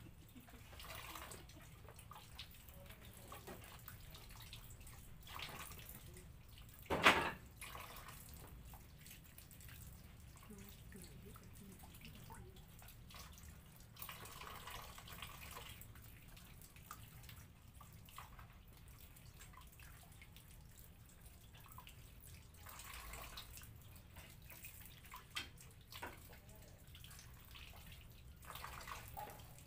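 Tap water running and splashing into a basin as passion fruit are rubbed and rinsed by hand. One brief, louder knock about seven seconds in.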